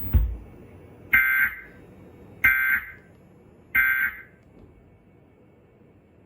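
Emergency Alert System end-of-message (EOM) data signal: three short, identical, warbling digital bursts about a second apart, marking the close of the alert. A low thump comes just before the first burst.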